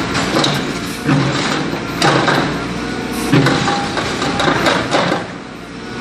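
JCB 4CX backhoe loader's diesel engine working under load, rising and falling, with scrapes and clunks of the backhoe bucket in broken asphalt and rubble about once a second; the engine eases briefly near the end.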